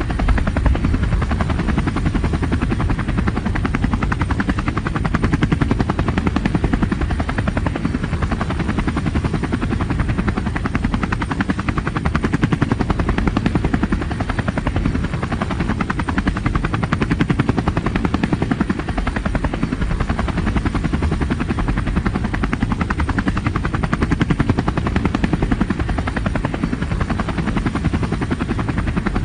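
Coast Guard helicopter heard from on board: a steady, dense low rumble of rotor and turbine with the rapid chop of the blades.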